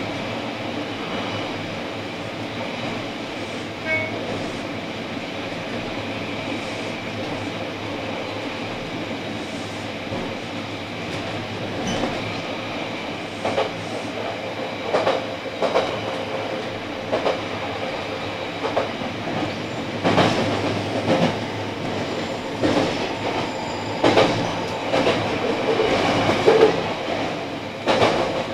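A JR Kyushu 817 series electric train running, heard from inside its cab: a steady rolling noise with wheels knocking over rail joints and points, the knocks coming more often and louder in the second half.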